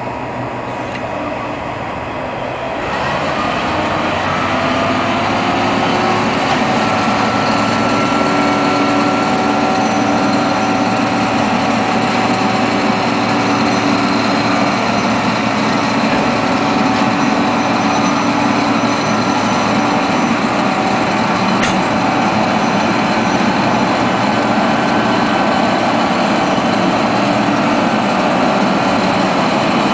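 A crane's engine running hard as it pushes a boxcar along the track. The engine gets louder about three seconds in and then holds steady, with a short sharp tick a little past the middle.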